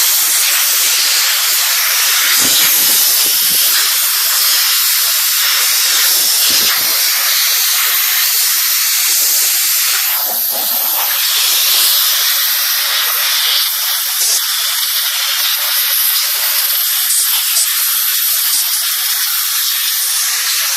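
A loud, steady hiss throughout, with a few short, low knocks about two and a half and six and a half seconds in.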